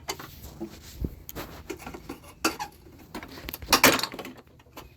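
Metal parts clinking and rattling in scattered knocks as the frayed drive cable of a Toro Recycler self-propelled mower is worked loose and unhooked from its drive linkage, the loudest cluster coming near the end.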